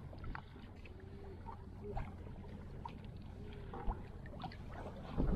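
Quiet ambience on a fishing kayak at sea: low wind and water rumble with scattered faint clicks and brief squeaks, and a louder low knock near the end.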